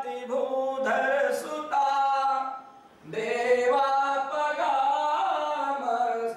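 A man chanting Sanskrit verses in a sung, drawn-out recitation, breaking off briefly near the middle before carrying on.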